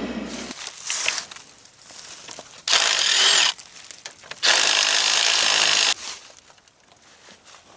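A mini excavator's engine running, then cutting off about half a second in. It is followed by a brief scrape and two longer, loud rasping scrapes, each about a second long.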